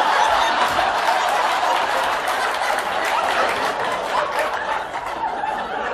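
Studio audience laughing and applauding in one long, loud reaction that eases off slightly near the end.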